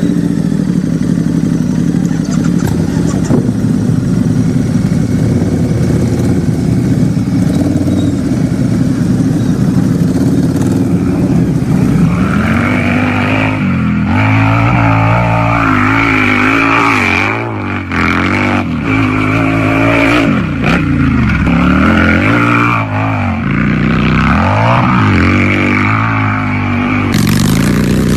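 Harley-Davidson V-twin motorcycle engine idling steadily. About twelve seconds in it starts being revved over and over, its pitch rising and falling with each blip of the throttle.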